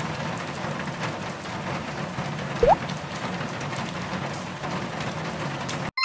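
Steady rain and wind noise. About two and a half seconds in comes a short rising squeak with a low thump.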